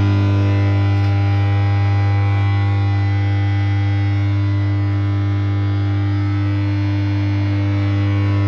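Inflatable hot tub's pump unit running with a loud, steady electrical hum.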